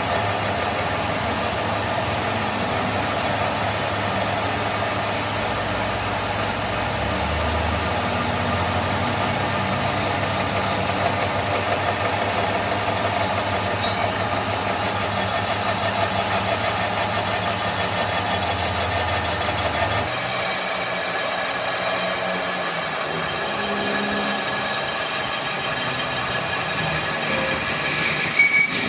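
A machine or engine running steadily, with a low hum that drops out abruptly about two-thirds of the way through as the sound changes character. There is a brief click about halfway and a couple more near the end.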